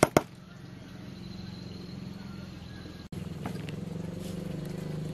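Two sharp clicks at the start, a metal spoon knocking against a plastic basin while scooping rice, over a steady low engine-like hum that gets louder after about three seconds.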